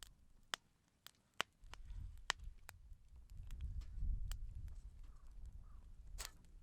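Wood fire crackling: irregular sharp pops and snaps, about a dozen in all. A low rumble sets in about one and a half seconds in and is heaviest around the middle.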